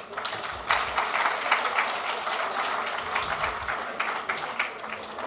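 Audience applauding: many hands clapping, building up within the first second and then going on steadily, easing off slightly near the end.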